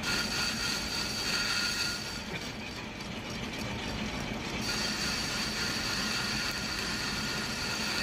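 Metal lathe running steadily, its headstock gears whirring, while a pointed tool bit cuts a groove into the spinning metal workpiece.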